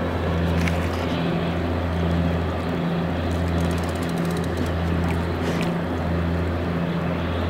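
Boat engine running steadily: a low drone with an even throb a little faster than once a second.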